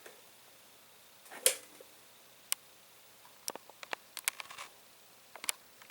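Scattered light metallic clicks and knocks from parts and tools being handled at a mini lathe, with the loudest knock about a second and a half in and a cluster of quicker clicks near the middle.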